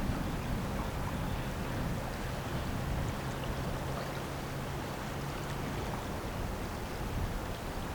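Steady low drone of a passing lake freighter, with a low hum that fades out about five seconds in, over a haze of wind and river-water noise.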